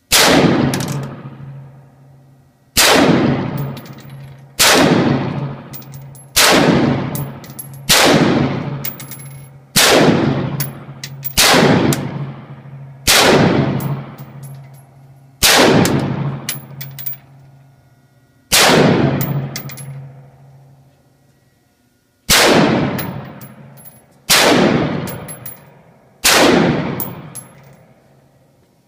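A firearm fired in slow, single shots, about thirteen of them one to three seconds apart, each shot trailing off in a long echo.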